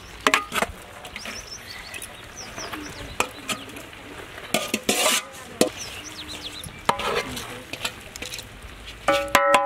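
A metal spoon stirs cooked macaroni in a large aluminium pot, giving scattered clinks and scrapes against the pot. Birds chirp faintly, and music with sustained pitched notes comes in near the end.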